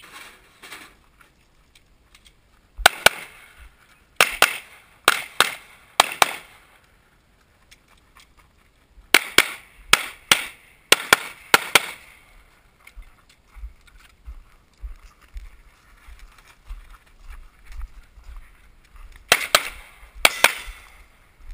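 Pistol shots from a Limited-division competition pistol, fired mostly in quick pairs in three strings: about a second in, then a few seconds later, and again near the end.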